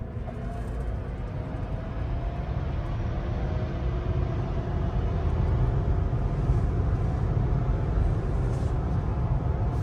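Rivian R1T electric pickup accelerating, heard from inside the cabin: a faint electric motor whine rising slowly in pitch over road noise that grows steadily louder.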